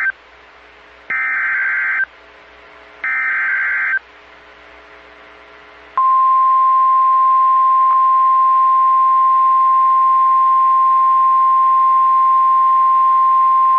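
Emergency Alert System SAME header: the tail of one burst of warbling digital data tones, then two more bursts about a second long, each followed by a short pause. About six seconds in, the NOAA Weather Radio warning alarm starts: a single steady tone near 1 kHz that holds. Together they signal that a new warning message, here a severe thunderstorm warning, is about to be read.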